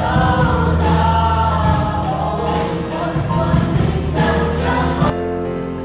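A congregation singing a worship song together with a live band: electric guitar, bass and drums under many voices. About five seconds in it cuts off abruptly to soft instrumental background music.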